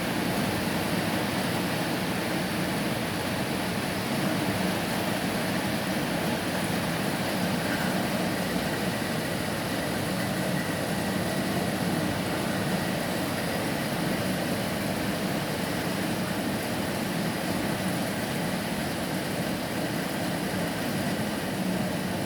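Rain falling steadily: an even, unbroken rush of noise with no separate drops or strikes standing out.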